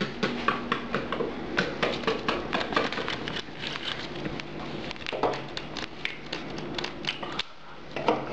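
Trading cards being handled and laid down on a table: an irregular run of light taps and clicks over a steady low hum.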